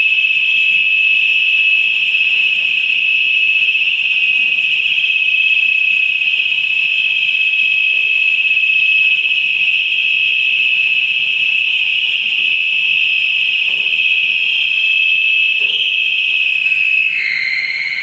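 Liquid-oxygen tank trailer's valve venting cold oxygen: a loud, steady, high-pitched whistling hiss. Near the end it wavers, shifts pitch and dies away.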